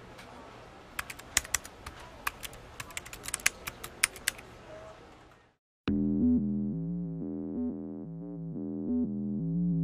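Keyboard typing sound effect, irregular key clicks over a faint hiss, for about five and a half seconds. After a brief silence, music comes in with low, pulsing sustained chords.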